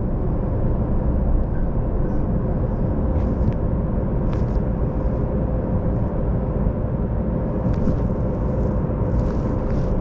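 Steady low rumble with a constant hum inside a Las Vegas Monorail car.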